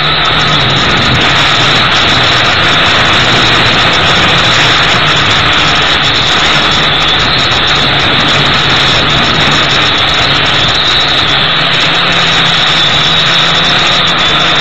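Gptoys Aviax F2C quadcopter's motors and propellers running with a steady, unchanging buzz, heard through the drone's own onboard camera microphone, with a dense rushing hiss over it.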